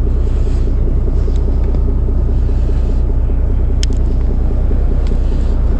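A fishing boat's engine running steadily, a loud low hum with a rumble heard from on deck. A faint sharp tick sounds once about four seconds in.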